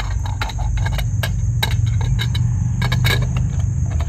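Irregular light clicks and scrapes of a wire being worked through an aluminum service weatherhead. Under them runs a steady low rumble, with crickets chirring steadily in the background.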